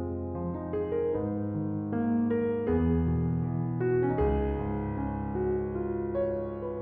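Background piano music: a melody of notes changing about every half second over sustained low bass notes.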